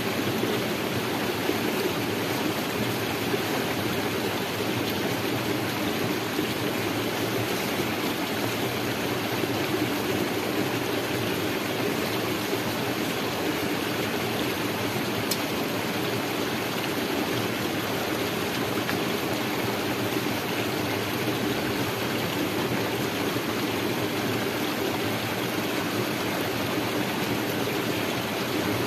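A stream running steadily: an even, unbroken wash of flowing water.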